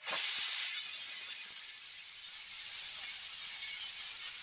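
Pressure cooker whistle blowing: a loud, steady, high-pitched hiss of steam that starts abruptly. It is the cooker's single whistle, the sign that the cauliflower inside is cooked.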